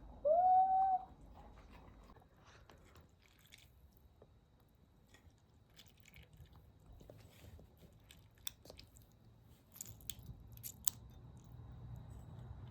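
Hands handling and squeezing a cut-open foam squishy toy: faint crackling and scattered clicks, growing sharper later on. It opens with a short squeal, under a second long, that rises in pitch and then holds.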